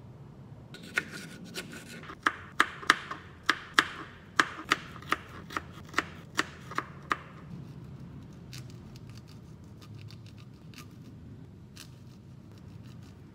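Kitchen knife chopping bell pepper on a cutting board: sharp knocks of the blade on the board, about two to three a second, loudest in the first half. Lighter, sparser taps follow in the second half.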